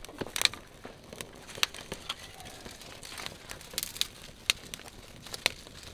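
Sharp, irregular crackles and clicks with some crumpling, from a campfire being lit with damp wood and kindling.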